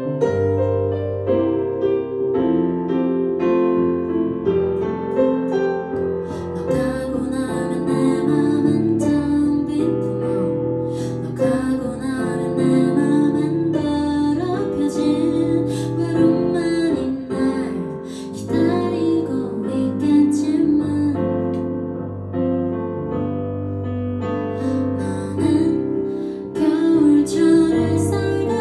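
A woman singing a slow ballad live while accompanying herself on a Kurzweil digital piano. The piano plays alone at first, and her voice comes in several seconds in.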